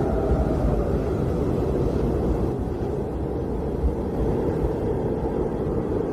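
Blizzard wind blowing steadily, a deep rushing noise with a faint wavering whistle near the start.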